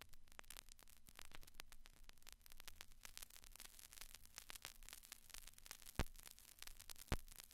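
Faint crackling static: a dense run of small clicks and pops, with two louder pops about six and seven seconds in.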